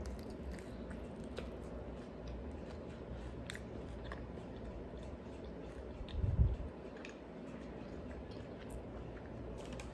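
Close-up chewing and mouth sounds of someone eating, with scattered small clicks and a dull low thump about six seconds in.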